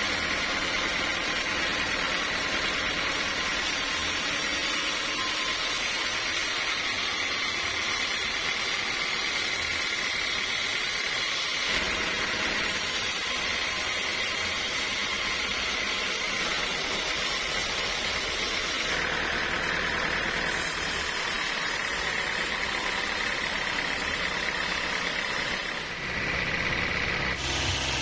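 Band sawmill running and cutting lengthwise through a large teak log: a steady hiss of blade and wood with a constant high whine. The sound shifts abruptly a few times, most clearly about 12 seconds in and again near the end.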